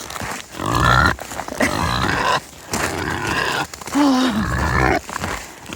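Kunekune pigs grunting and squealing in a run of about five calls, begging to be fed.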